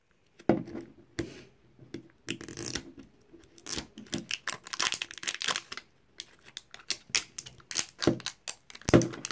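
Clear plastic wrapping being picked at and peeled off a small plastic toy capsule by hand: a run of irregular crinkles and small tearing crackles.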